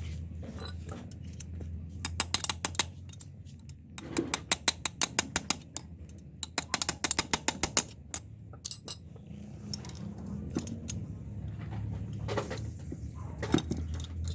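Quick runs of sharp metallic clicking, in three main bursts of a second or two each, over a low steady hum.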